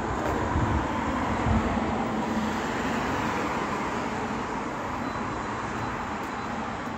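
Road traffic: the steady rush of passing vehicles, easing slightly toward the end.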